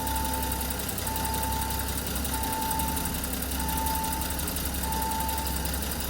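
BMW E30 325i's 2.5-litre straight-six idling just after its idle control valve has been plugged back in, with the idle not yet settled. A steady electronic beep repeats about every 1.25 seconds over the engine.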